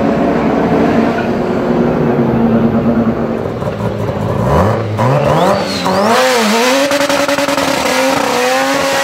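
A car engine runs at steady revs. About halfway through, the big-turbo Mazda RX-7 FD's engine revs up sharply and wavers, then holds high revs while the rear tyres spin in a burnout, with a loud hiss over the engine note.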